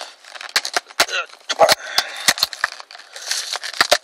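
Toy blister pack being pried and torn open by hand: the clear plastic bubble and cardboard backing crackle and snap in quick, irregular bursts.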